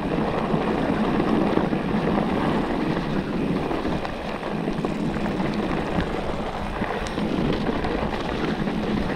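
Steady rushing, rumbling noise of a mountain bike riding down a dirt trail: tyre and wind noise on the rider's camera, with a few light clicks and rattles.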